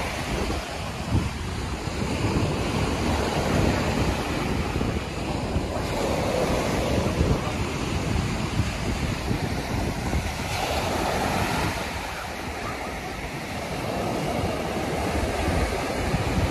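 Ocean surf breaking and washing up a sandy beach, a steady rushing that swells and eases, with wind buffeting the microphone.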